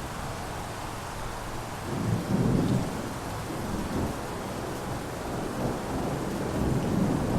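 Thunderstorm: steady rain with rolling thunder, a rumble swelling about two seconds in and another building near the end.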